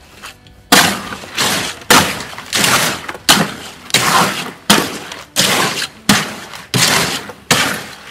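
A hoe dragged and pushed through wet concrete in a steel wheelbarrow. There are about ten mixing strokes, a little over one a second, starting about a second in; each starts sharply and then trails off.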